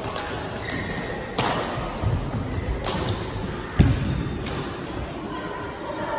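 Badminton rally: sharp racket hits on the shuttlecock a second or so apart, and a heavy thud a little under four seconds in as a player lunges and lands.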